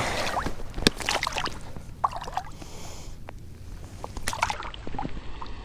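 Irregular splashing and sloshing in shallow water as a small walleye is released back into the river, with a few sharper splashes among the wash.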